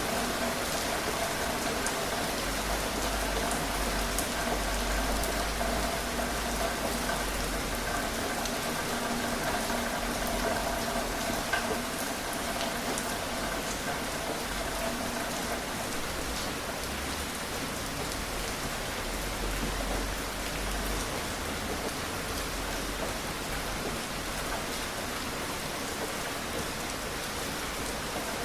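Steady rain falling, a continuous even patter with scattered individual drops ticking on a surface.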